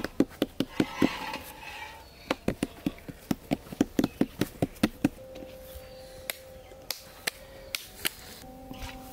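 Hands patting and slapping balls of bhatura dough flat on an oiled wooden board. The pats come in quick runs of about five a second, pause about a second in, and stop about five seconds in. After that only a few scattered taps are heard.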